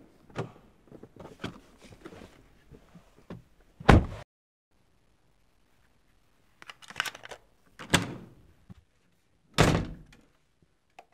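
Doors being worked: a car door opens with small clicks and shuts with a heavy thunk about four seconds in. After a short silent gap, a room door clicks and then thuds twice.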